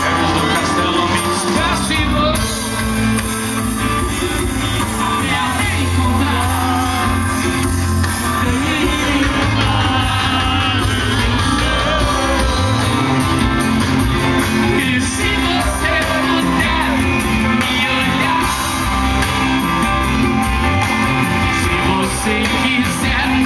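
Live band playing loud amplified music with a singer, heard from within the audience at an open-air festival stage, with people nearby shouting and singing along.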